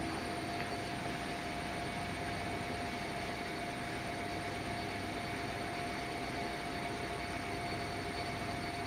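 Steady background noise, an even hiss with a thin steady whine running through it, unchanging throughout.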